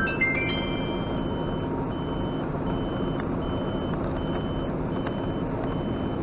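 Steady engine and road noise inside a moving truck's cab, with a high electronic beep repeating about every three-quarters of a second that stops just before the end. A short run of rising, stepped chime tones sounds right at the start.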